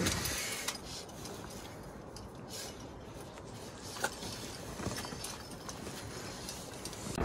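Faint rustle of a climbing rope and a few sharp clicks of metal climbing hardware as a climber lowers onto a rappel.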